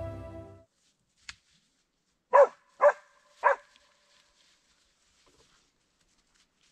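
A hunting dog barks three times in quick succession, with a short gap before the third bark.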